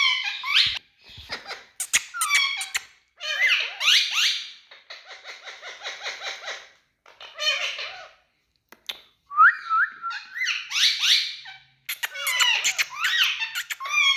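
A green parrot squawking and chattering in a string of shrill bursts with short pauses between them, some calls sliding up or down in pitch.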